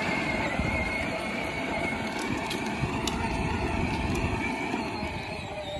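Battery-powered John Deere ride-on toy tractor driving: a steady electric motor and gearbox whine over the rumble of its hard plastic wheels rolling on concrete.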